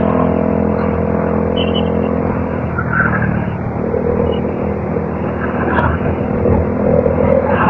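Motorcycle engine running steadily, with wind and road noise.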